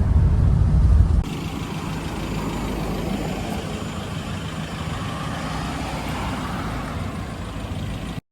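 Vehicle noise from inside a moving car: a heavy low engine and road rumble for about a second, then an abrupt cut to a quieter, steadier hiss of vehicle noise.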